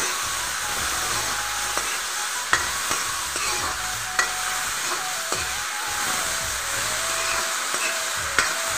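Vegetable fern greens (dhekia) and potato pieces frying in oil in a metal wok, sizzling steadily as a spatula stirs them. The spatula knocks and scrapes sharply against the pan a few times.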